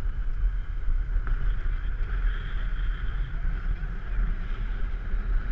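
Wind rushing over the microphone with a steady low rumble, and the hiss of inflatable snow tubes sliding down packed snow.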